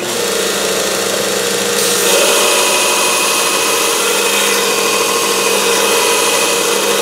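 Belt grinder running with a steady motor hum, steel being ground against the belt from about two seconds in and adding a dense, harsh grinding noise. A taper is being ground onto the end of a steel piece to prepare it for MIG welding.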